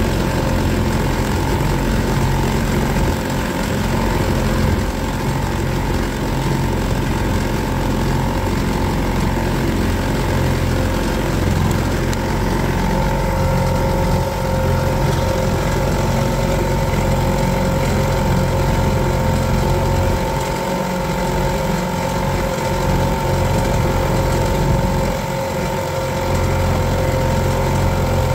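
Boat motor running at a steady speed: a constant whine over a low drone.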